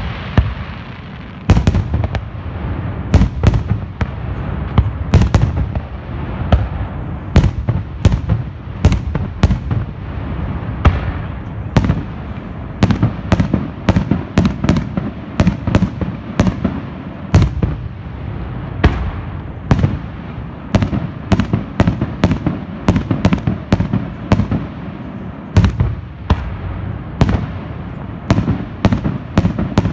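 Aerial firework shells bursting in quick succession: many sharp bangs, often several a second, over a continuous low rumble. The first second and a half is a hiss, before the bangs begin.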